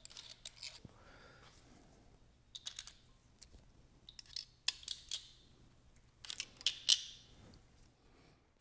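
Sharp metallic clicks and clinks in four short clusters, roughly every two seconds, from hand tools and hardware as the hold-down nuts of a Holley four-barrel carburetor are undone.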